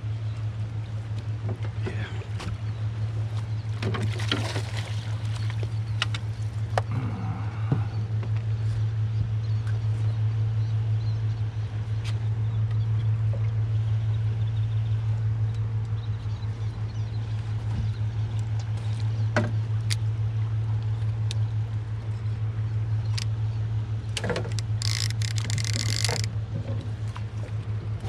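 A small engine running steadily, a low even hum throughout. Near the end there is a short, louder burst of splashing and rattling as a catfish is netted.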